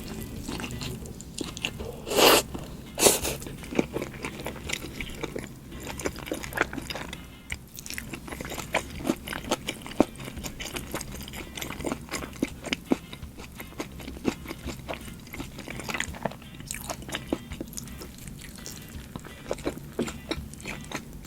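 Close-miked eating of a sambal petai and blue cheese burger. There are two loud bites about two and three seconds in, then steady chewing with many small crunches and clicks.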